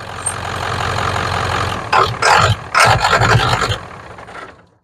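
1994 Ford 7.3 Powerstroke diesel engine running at idle, with a few louder, rougher surges about two to three and a half seconds in before the sound drops away near the end. The truck has an intermittent fault in its corroded IPR wiring that makes it die or refuse to start.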